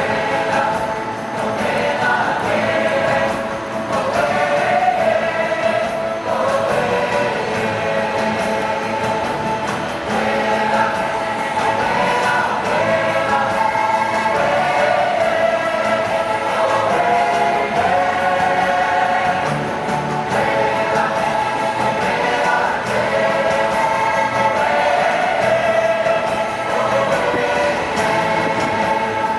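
A choir singing long held notes over orchestral music.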